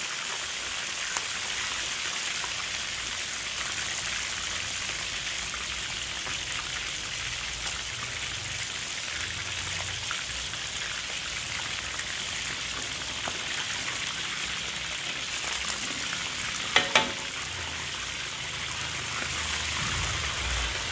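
Chicken thighs deep-frying in hot oil in a wok: a steady, even sizzle. A brief, louder double sound stands out about three-quarters of the way through.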